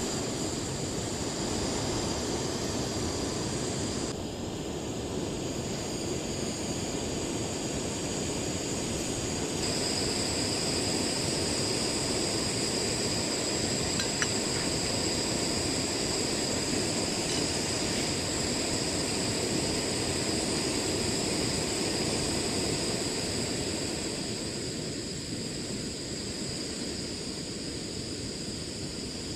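Portable gas camping stove burner running steadily, a jet-like roar with a high hiss, heating water. It starts abruptly and eases a little near the end.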